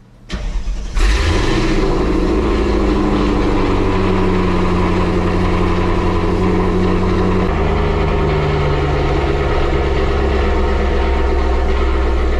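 Mercedes-AMG SL55's supercharged M113K V8 turning over on the starter briefly, firing about a second in, then settling into a steady idle. This is its first start on a freshly flashed tune. The idle steps down slightly about seven and a half seconds in.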